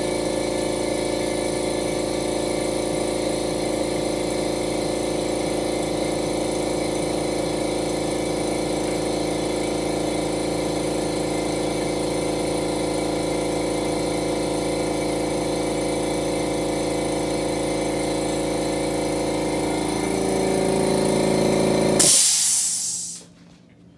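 California Air Tools 8-gallon ultra quiet compressor running steadily, an even motor-and-pump whine. Its pitch and level rise slightly near the end. It then shuts off with a short burst of hissing air and the whine dies away.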